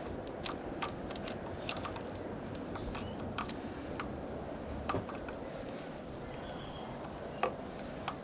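Irregular light clicks and taps of small metal tools and parts being worked by hand during an outboard prop seal repair, over a steady background hiss.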